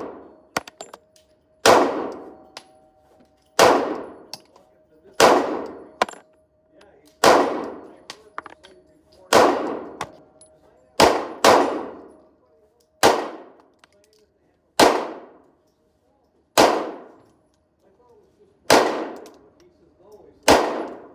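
Pistol shots fired one at a time, about a dozen, roughly every one and a half to two seconds, two of them closer together about eleven seconds in. Each shot rings out with a long echoing decay.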